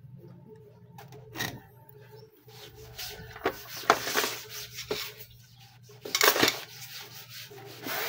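Tools and a clear plastic parts box of small brass pieces handled and set down on a tiled floor: scattered knocks, rattles and scrapes, the loudest cluster about six seconds in.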